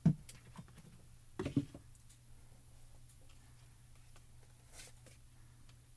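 A knock of card stock set down on the craft table, then a short run of taps about a second and a half in, and a faint brush of paper near the end, as the card panel is handled over the work mat.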